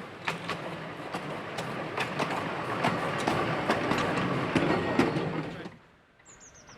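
Small narrow-gauge train running past, its wheels clicking over rail joints as the rumble grows louder, then cutting off abruptly near the end. A brief descending run of high chirps follows.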